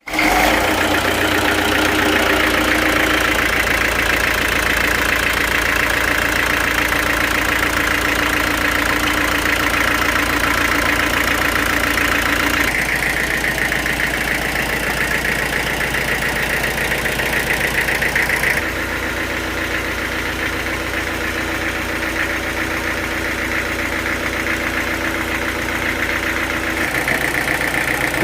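Sawmill machinery running steadily, a loud engine-like drone with a high whine over it. The sound shifts abruptly three times.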